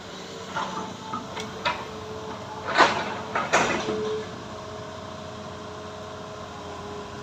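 Heavy earthmoving machinery working logs: a steady engine hum with a string of knocks and clanks, the two loudest about three seconds in, then just the even hum.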